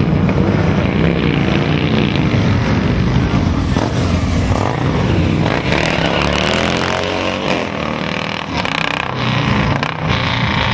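Several heavy touring motorcycles riding by and pulling away. Their engines run loud throughout, with the engine note rising and falling as they accelerate about halfway through.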